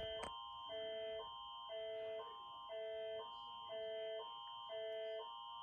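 Canadian emergency alert attention signal: two chords of steady electronic tones taking turns about every half second, a lower pair and a higher set, repeating without a break. A short click sounds just at the start.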